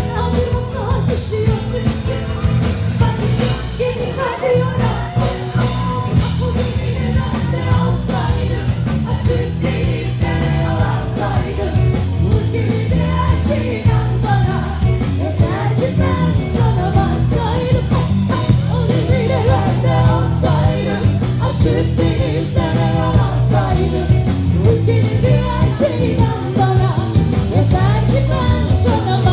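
Live band playing a song through a PA: a woman singing lead over electric guitar, bass and drums.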